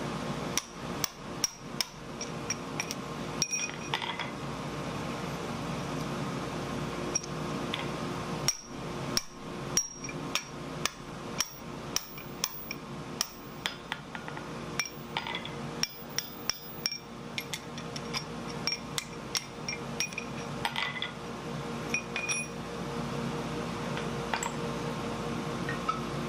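Hand hammer striking a punch and drift through red-hot steel on an anvil, punching the hole of a bottle opener: sharp metallic blows with a short ring, in irregular runs of about two a second with brief pauses, over a steady hum.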